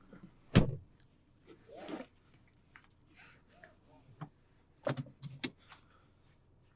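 A Dacia Sandero Stepway's driver door shutting with a single heavy thud about half a second in. After it come scattered clicks and rustles from the cabin, with a quick run of sharper clicks near the end.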